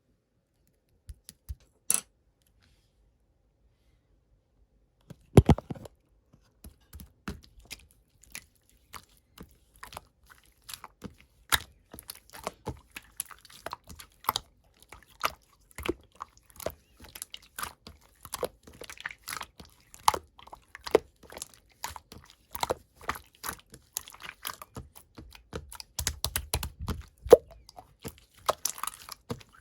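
Slime being squished and poked by hand, giving sticky clicks and small pops. A few isolated clicks come in the first seconds, then from about five seconds in they come thick and irregular.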